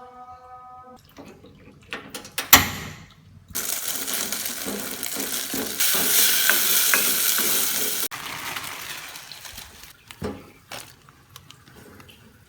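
Kitchen sounds: a few knocks of a pot or dish, one of them loud, then a steady rush of running or pouring water that gets louder and cuts off suddenly, followed by two more knocks.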